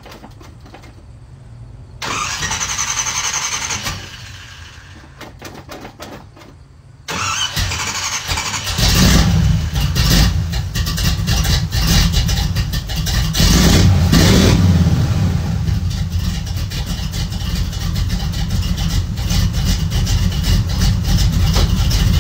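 Chevrolet OBS pickup engine cranking on the starter for about two seconds without catching, then a few seconds later starting up and running loudly. It is revved a few times before settling to a steady run.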